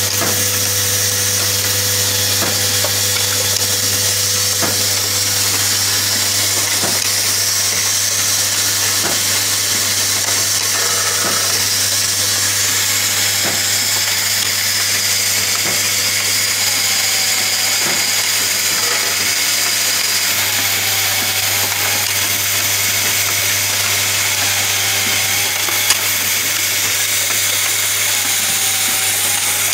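Automatic MCB box-clamp screwing and assembly machine running, with its vibratory bowl feeder. A steady hum and hiss carry throughout, with a sharp click from the mechanism every second or two.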